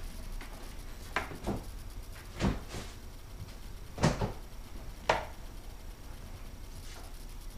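A handful of short knocks and clunks at irregular intervals, the loudest about four seconds in.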